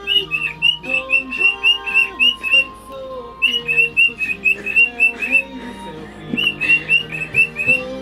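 Cockatiel chirping in quick runs of short, sharp chirps, about four or five a second, in three bursts with brief pauses between. The owner puts the excited chirping down to a mirror placed on top of its cage. Background music plays throughout.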